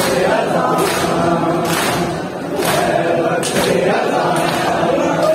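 A large crowd of men chanting a Shia noha in unison, with sharp hand slaps on bare chests (matam) striking together about once a second in time with the chant.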